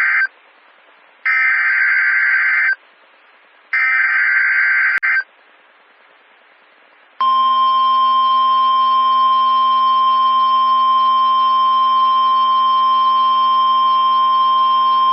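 NOAA Weather Radio Emergency Alert System activation for a severe thunderstorm warning: the tail of one SAME header data burst, then two more harsh buzzing bursts, each about a second and a half long with a short pause between. About seven seconds in, the steady 1050 Hz warning alarm tone starts and holds to the end.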